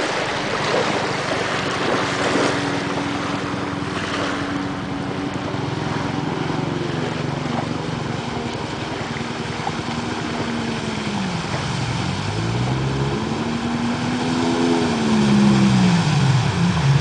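Jet ski engine running under way over wind and water noise. Its pitch swings down and back up several times in the second half, and it is loudest near the end.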